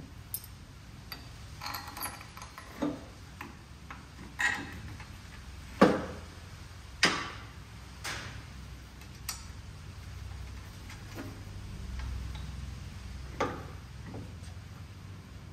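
Irregular metal clinks and knocks as bolts and a steel engine-stand adapter plate are handled and fitted to a VW Beetle engine, the loudest about six and seven seconds in, over a low steady hum.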